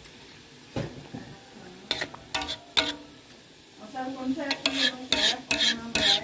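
Metal spatula stirring a thick rendang of jengkol beans in a wok, scraping and knocking against the pan. A few single strokes come early, then a quick run of strokes in the last two seconds.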